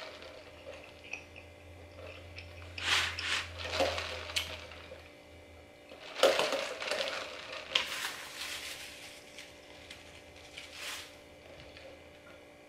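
Close-up mouth sounds of sipping a drink through a straw from a plastic cup: short wet slurps in two clusters, then one more near the end.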